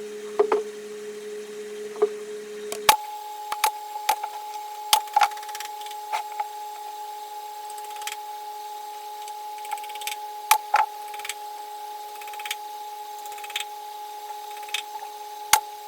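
Small electric motor of a power tool running with a steady whine that steps up to a higher pitch about three seconds in and holds there, with sharp cracking snaps scattered throughout as material is cut.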